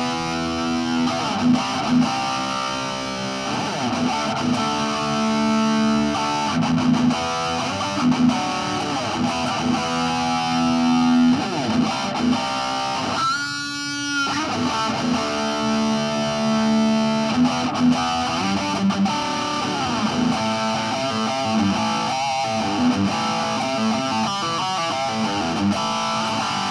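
Heavily distorted electric guitar riffs and chords played through a Roland Cube 20X practice amp on its metal setting, in short phrases with brief gaps. About halfway through a brief high squeal rises out of the playing, which the player takes for this setting feeding back.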